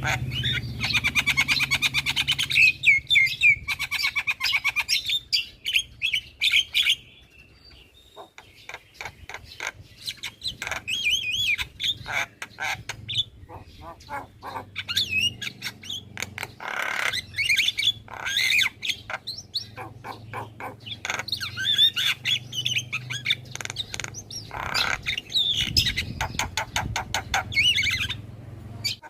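Javan myna calling almost without pause: rapid chattering clicks and harsh squawks mixed with whistled, gliding notes, with a short lull about seven seconds in.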